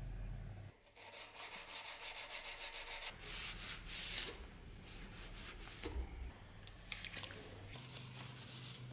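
Steel knife blade being hand-sanded with sandpaper: quick, even back-and-forth rasping strokes, which grow louder and coarser in the middle.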